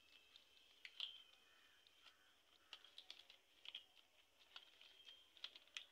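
Faint, irregular clicking and crackling of dry coconut-frond leaflets as hands weave them over and under into a mat, with one sharper click about a second in.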